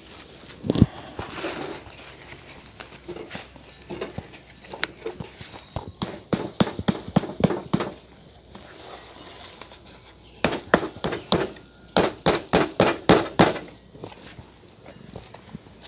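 Knocks on a black plastic plant pot held on its side, working a root-bound bird's nest fern loose: a heavy thump about a second in, then two runs of quick knocks at about four a second, one about six seconds in and a longer one from about ten seconds in.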